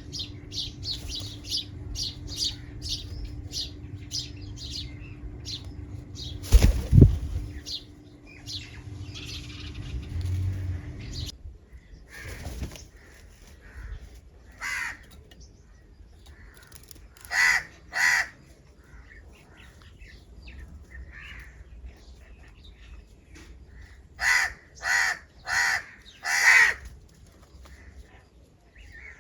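House crows cawing: two harsh caws about halfway through, then four in quick succession near the end. Smaller birds chirp rapidly at the start, and there is a heavy thump at about seven seconds.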